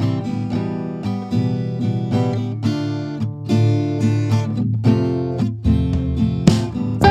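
Background music played on acoustic guitar, a run of picked and strummed notes.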